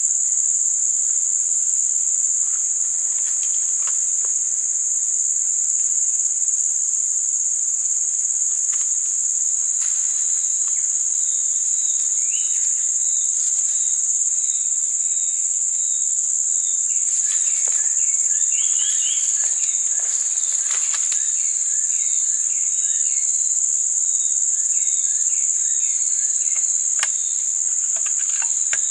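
Insects droning steadily in one high-pitched band, with a run of short repeated chirps joining from about twelve seconds in and a few sharp clicks.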